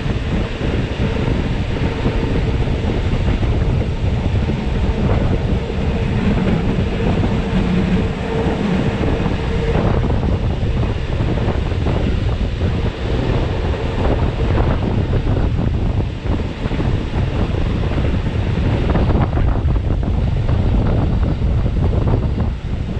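Wind buffeting a camera fixed to the carriage window, over the steady running noise of a Rhaetian Railway Bernina line passenger train's wheels on the rails. A steady whine sounds through roughly the first half, then fades out.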